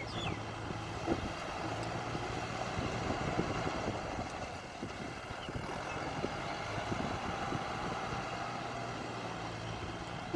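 Farm tractor engine running hard under load as the tractor tries to climb out of a flooded rice paddy where it is stuck. A steady low engine hum sits under a rushing noise that swells over the first few seconds and eases toward the end.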